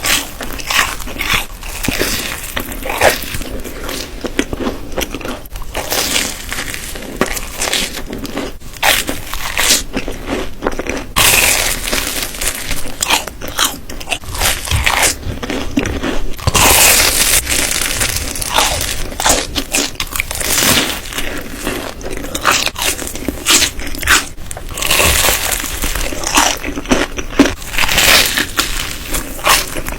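Close-miked biting and chewing of a crispy chocolate doughnut, with repeated crunches and crackles as the crisp crust and coating break between the teeth.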